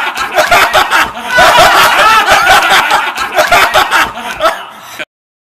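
High-pitched snickering laughter in quick repeated syllables, cutting off abruptly about five seconds in.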